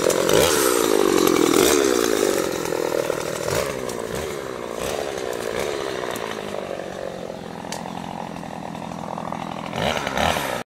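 Two-stroke chainsaw running at the hedge, its engine speed rising and falling as it is revved. Loudest in the first couple of seconds, then running a little lower, and the sound cuts off suddenly at the end.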